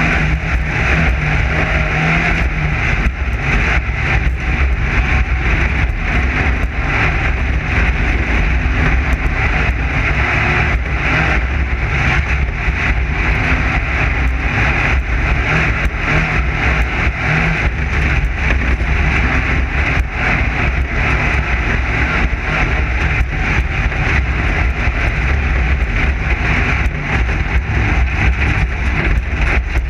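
Class 9 desert race car running flat out over rough dirt: a steady, loud engine drone with constant knocks and rattles from the chassis, without let-up.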